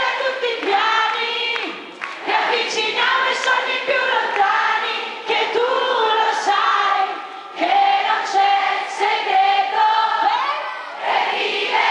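A crowd singing a pop song together with a female lead singer on a microphone, with no instruments, in phrases broken by short breaths.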